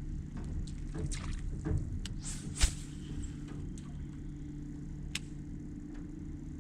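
A small boat's motor running with a steady low hum. A few light clicks and one sharper knock about two and a half seconds in ring out over it.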